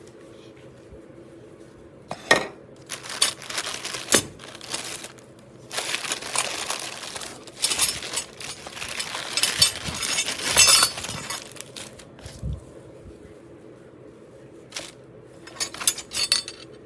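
Small hard parts and packaging being handled: scattered clicks, clinks and knocks with stretches of rustling, busiest in the first part and sparser near the end.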